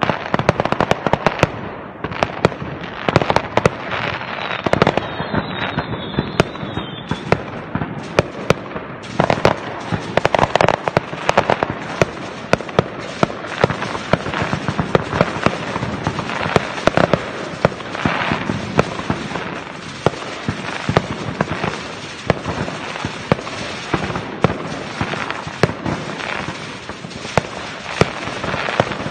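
Many aerial fireworks going off at once: a dense, unbroken barrage of bangs and crackling. A thin wavering whistle rides over it for the first several seconds.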